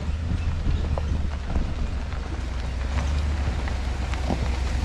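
Pickup truck with a camper on the back driving slowly down a rocky road: a steady low engine and drivetrain rumble, with scattered clicks and knocks of the tyres rolling over rocks.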